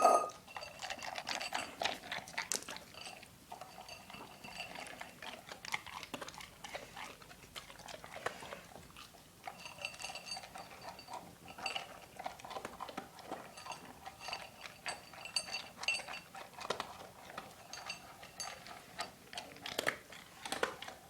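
A dog eating from a bowl: irregular chewing and crunching, with frequent clinks of the bowl that ring briefly.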